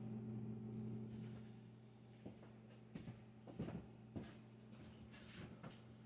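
A steady low hum with a handful of soft knocks and shuffling in the middle stretch: a person moving about and walking up to the table.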